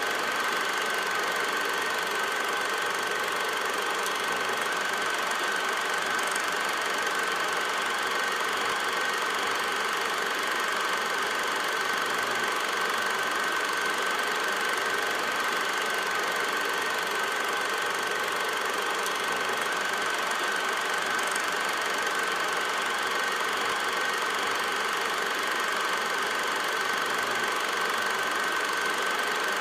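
16mm film projector running: a steady mechanical whir with one constant high whine, unchanging throughout.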